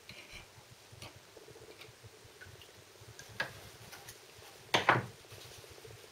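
A small metal part being lifted out and wiped with a cloth by hand: scattered light clicks and taps, a sharper click about three seconds in, and a short, louder clatter about five seconds in.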